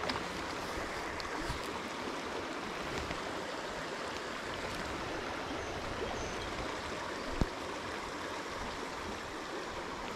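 Shallow stream flowing steadily over riffles: an even rush of moving water, with one brief click a little after seven seconds in.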